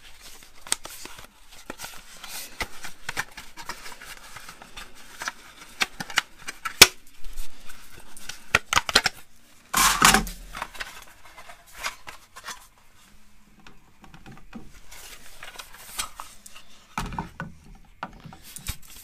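Clicks, knocks and light rattles as a thin sheet-aluminium nose rib is handled and pulled out of its wooden form blocks, with a louder clatter about ten seconds in.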